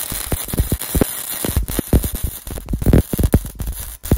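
Wire-feed (MIG) welder arc running a bead on a steel bumper: a steady frying hiss broken by irregular crackling pops, with a brief break just before the end.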